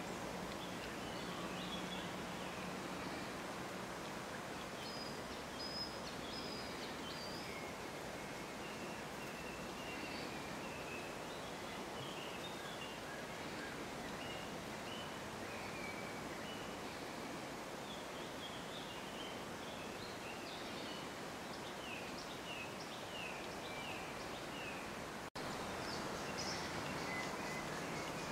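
Steady outdoor hiss with songbirds singing in the background, in short high chirps and trills throughout. There is a momentary dropout near the end.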